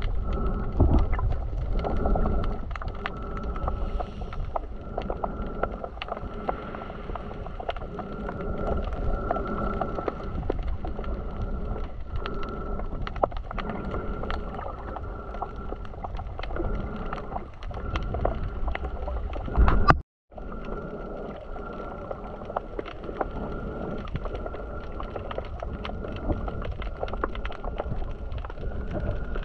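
Muffled sea water sloshing and gurgling close to the microphone, with many small clicks and a faint steady whine. A loud surge comes about twenty seconds in, then a split-second gap.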